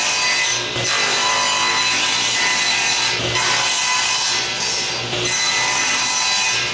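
Table saw running and crosscutting drawer-side boards to length against a stop block, with short lulls between cuts about a second, three and five seconds in.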